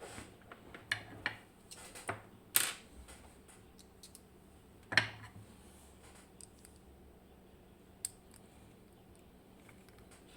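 Scattered clicks and taps of small metal lock parts and tools being handled while a Medeco M4 lock is taken apart, with two sharper knocks in the first half and a single click later on.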